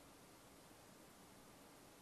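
Near silence: a faint, steady hiss of background noise.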